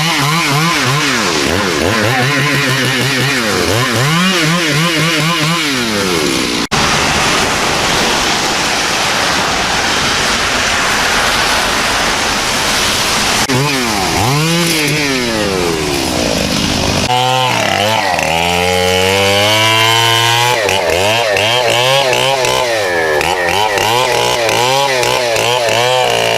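Two-stroke chainsaw engine revving up and down over and over while cutting up a fallen leucaena tree, with a brief break about seven seconds in and a stretch held at steady speed later on.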